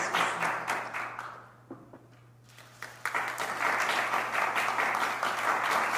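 A small gathering applauding, which dies away about a second and a half in and starts up again about three seconds in.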